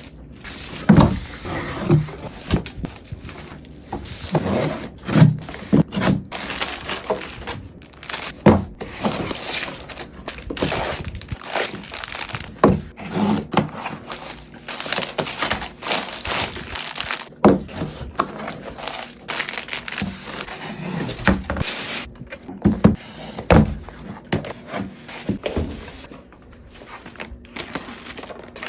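Close-up unboxing sounds: packaging and small items being handled, with rustling and crinkling and a string of sharp taps and knocks.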